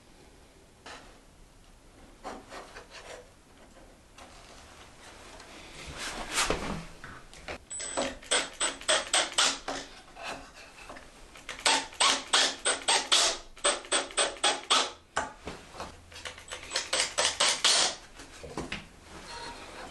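Wood being worked by hand in rapid back-and-forth rasping strokes, about five a second. The strokes come in several runs of a few seconds each, after a quieter start with a few single scrapes.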